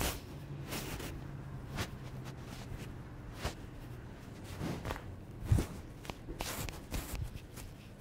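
Hands working a man's head and neck in a barber's massage: scattered short cracks, taps and rustles of fingers on hair and skin, the loudest a knock about five and a half seconds in.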